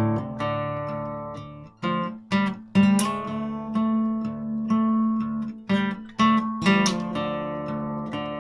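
Background music: an instrumental passage on acoustic guitar, with strummed and plucked chords.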